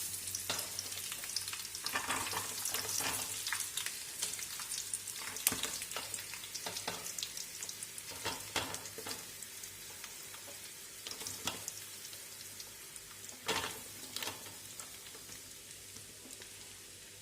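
Sliced onions frying in hot oil in a pan, sizzling loudly at first and then dying down steadily as they cook, with a spoon stirring and now and then knocking against the pan.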